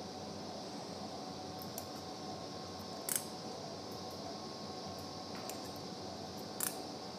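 Steady operating-room hum, with two sharp metallic clicks from surgical instruments about three seconds in and again near the end, and a few fainter ticks.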